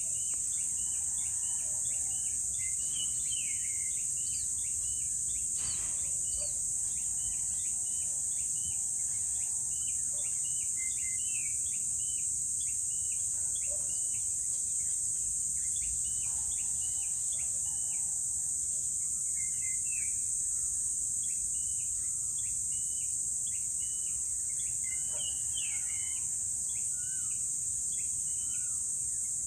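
Outdoor morning soundscape: a steady high-pitched insect drone with many birds chirping and calling over it, short calls repeated throughout.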